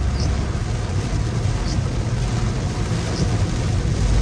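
Road and engine noise inside a moving car's cabin: a steady low rumble with hiss over it, and a faint, brief high swish about every second and a half.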